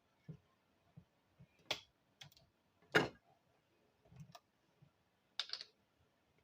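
Short, scattered clicks and knocks of kitchen containers being handled while apple cider vinegar is measured out, the loudest knock about three seconds in, with a brief hiss near the end.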